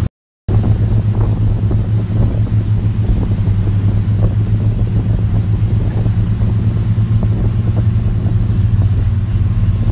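Motorboat engine running at a steady low hum, heard on board over water, with a half-second dropout right at the start.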